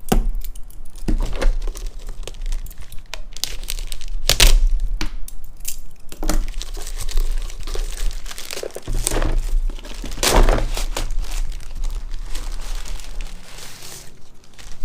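Packaging being torn open and crinkled by hand while unboxing a parcel, in irregular rustling, tearing bursts.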